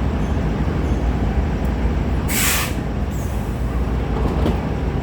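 A passenger train rumbling steadily, with one short, loud hiss of air from the air brakes about two seconds in.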